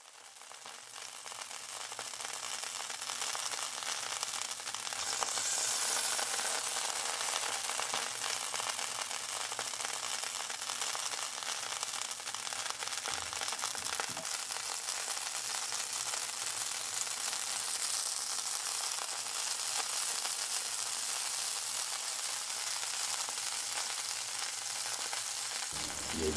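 Steady rain hiss with a fine crackle, fading in over the first couple of seconds.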